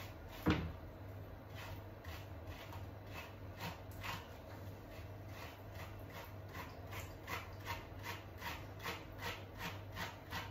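Brush strokes raking through a Jackapoo puppy's wet, shampoo-lathered, knotted coat, a short scratchy stroke about two or three times a second, working the tight knots loose. There is one sharper knock about half a second in, over a steady low hum.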